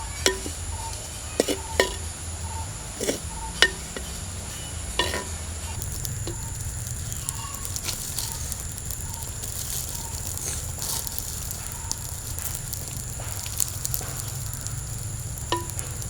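Chopped Costus speciosus (thebu kola) leaves cooking in a pan as a mallung: a spoon knocks against the pan several times in the first few seconds of stirring, then the leaves sizzle steadily from about six seconds in.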